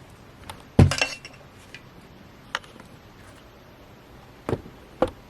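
Hard objects clinking and knocking as they are handled and set down: one loud clink with a short ring about a second in, a few faint clicks, then two more knocks near the end.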